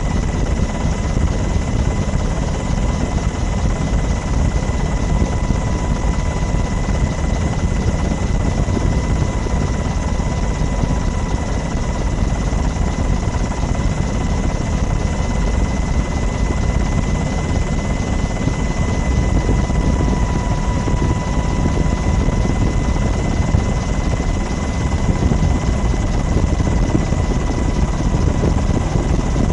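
Helicopter running steadily, heard from on board: a deep constant rumble with a steady high whine over it.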